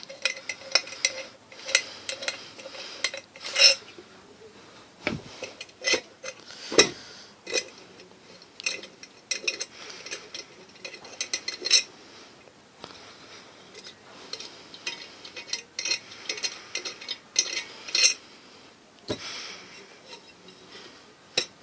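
Scattered metallic clinks, taps and scrapes, with a few sharper knocks, as the screws are taken out of an opened ceiling fan's metal casing.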